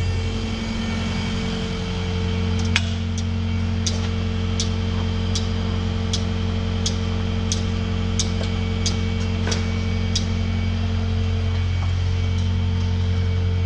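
Kubota excavator's diesel engine running steadily as the machine swings around. A sharp click repeats about every three-quarters of a second from about three seconds in until about ten seconds in.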